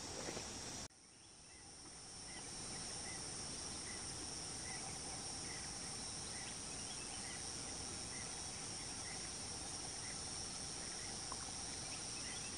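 Steady, high-pitched chorus of insects, with a faint chirp repeating about every two-thirds of a second. The sound drops away suddenly about a second in and swells back over the next two seconds.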